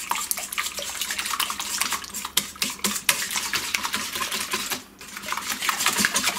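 Wire whisk beating eggs and honey in a stainless steel bowl: rapid clinking and scraping of the wires against the metal, with a brief pause just under five seconds in.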